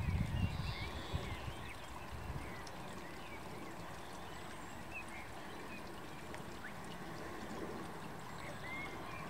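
Faint outdoor background: a low rumble that fades out about two seconds in, over a steady hiss, with small birds chirping briefly now and then.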